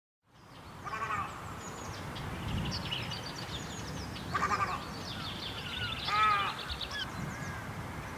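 White-browed crake calling, starting a moment in: bursts of harsh, nasal chattering notes, the loudest about a second in, at four and a half seconds and at six seconds, with a higher, faster chatter between them.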